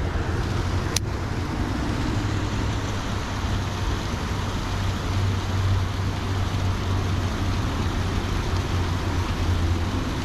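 Steady rushing outdoor background noise with a low hum, and one sharp click about a second in.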